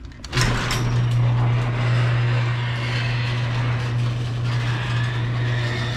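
Electric garage door opener raising a sectional steel garage door: a steady motor hum with the rattling noise of the door rolling up its tracks, starting about half a second in.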